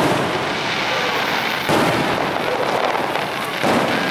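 Aerial fireworks shells bursting overhead one after another: a fresh sharp burst about a second and a half in and another near the end, over a continuous rolling noise from the bursts before.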